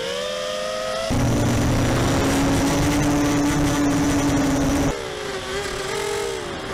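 FPV racing quadcopter's electric motors and propellers whining, the pitch rising and falling with the throttle. From about a second in to about five seconds, it cuts abruptly to a steadier, noisier motor drone with a low hum, as heard from a second quad's camera.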